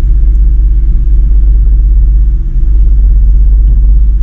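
Pontiac Grand Prix idling: a steady, loud low rumble with a constant hum, heard inside the car's cabin.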